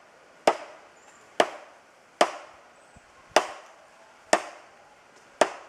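White-faced capuchin monkey banging a coconut down hard to crack it open: six sharp knocks about a second apart.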